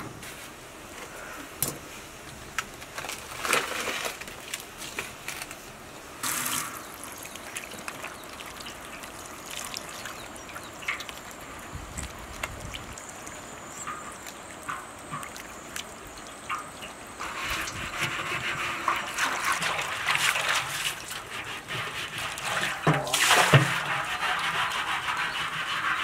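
Water running from a tap and splashing over hands as they are rinsed, with scattered small knocks and clicks. The running water grows louder in the second half.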